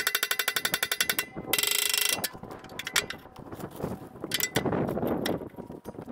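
Hand ratchet clicking while tightening the hub bolts of a belt sheave on a pumping-unit jack shaft: a run of fast, even clicks for about a second, then a quicker buzzing burst, then scattered clicks and knocks.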